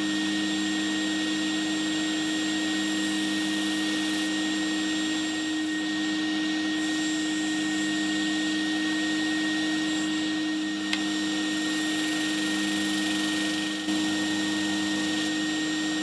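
Homemade drum sander running steadily on a freshly fitted drum bearing, with a steady hum and a high whine, in a test run before the drum has been re-trued. A thin wooden board is being fed through it.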